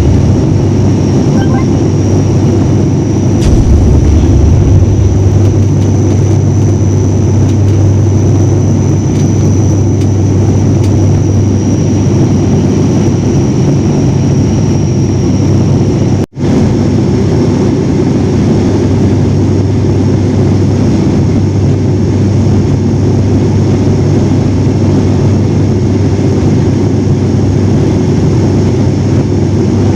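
Propeller airliner's engines and propellers droning steadily, heard from inside the cabin: a loud low hum with a faint high whine over it, as the plane descends through dense storm cloud. The sound cuts out for a moment about halfway through.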